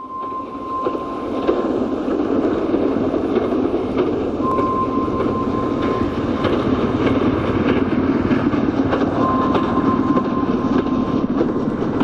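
Train running along the track: a steady rumble with scattered clicks, and a thin high tone that comes in three times for a second or two each.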